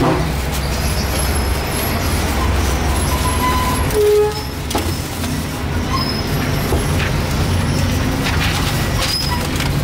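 Street traffic: a steady low engine rumble, with one short loud tone about four seconds in.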